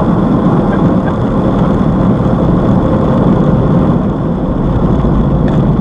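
Car-wash dryer blowers blasting air over the car, a loud, steady rush heard from inside the cabin.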